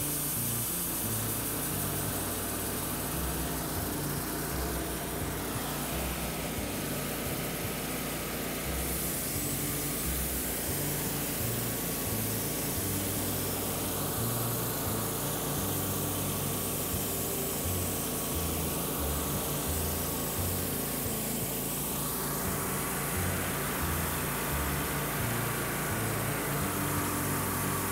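Wood-Mizer LT15 Wide band sawmill running, its blade cutting through a log to saw off a 1-inch board; a steady machine sound with a faint steady whine.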